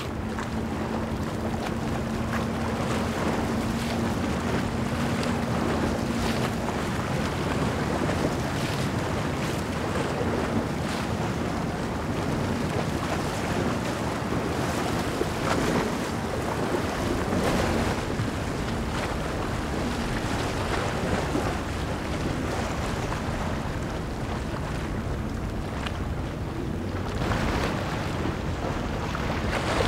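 Moonen 85 motor yacht cruising past at speed: a steady rush of water from its bow wave and wake, with wind buffeting the microphone. A low steady hum sounds under the rush for the first several seconds.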